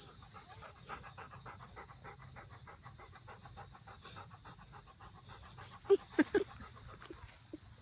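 Bernese mountain dog panting in a fast, even rhythm close to the microphone. A few short, louder sounds come about six seconds in.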